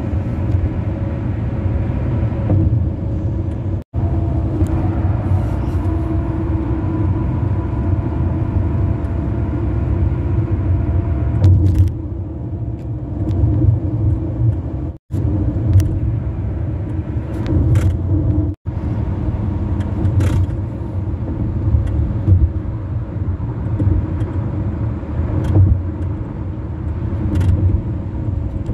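Car tyres running at highway speed over grooved concrete bridge pavement, heard from inside the car: a steady low rumble with a faint whine on top. It drops out briefly three times.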